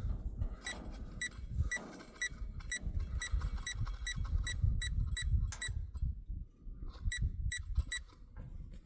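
PowerProbe circuit tracer beeping in short, high chirps about two to three times a second as it picks up the signal on the wiring being traced for a short, pausing for about a second near the end before beeping again. Low handling rumble underneath.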